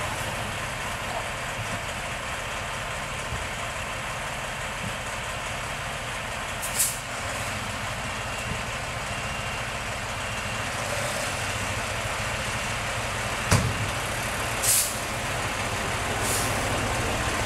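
Diesel fire truck engines idling steadily, with three short hisses of released air from the trucks' air brake systems and one sharp clack a little after halfway.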